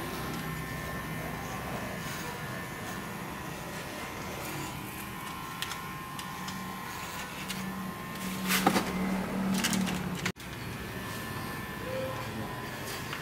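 Electric pet hair clippers buzzing steadily as they shave a pug's coat. A few louder knocks and clicks come about two-thirds of the way through, and the sound cuts out for an instant just after.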